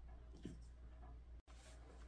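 Near silence: room tone with a steady low hum, one faint short sound about half a second in, and a brief dead gap in the audio near the middle.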